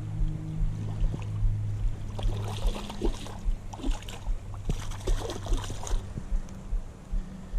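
Splashing, crackling water for a few seconds in the middle, over a steady low rumble that pulses about two or three times a second.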